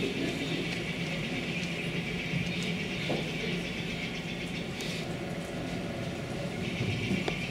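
Steady hum and hiss of a quiet auditorium, with a few faint knocks from movement on the stage floor.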